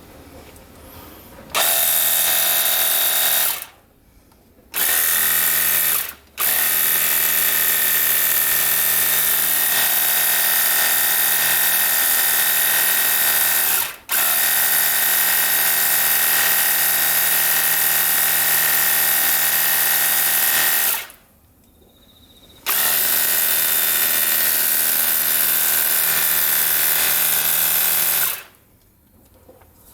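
Cordless battery-powered handheld pressure washer running in bursts, its pump motor whining steadily with a loud hiss. It starts about a second and a half in, and the trigger is released and squeezed again several times, with one long run of about fifteen seconds in the middle.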